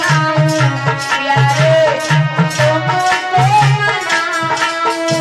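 Hindu aarti devotional music: a wavering sung melody over a steady, repeating drum beat.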